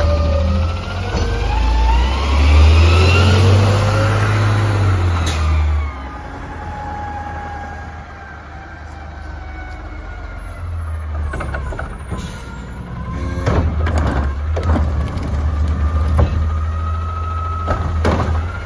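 Front-loader garbage truck with a Curotto-Can automated arm: the diesel engine revs and hydraulic whines rise in pitch as the arm works for the first several seconds, then the truck runs more quietly. From about twelve seconds in there are sharp metal clanks and a steady hydraulic whine as the arm grabs and lifts a trash cart.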